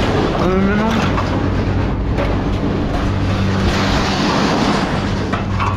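A vehicle engine running steadily, with a dense metallic rattling and scraping over it for a few seconds in the middle.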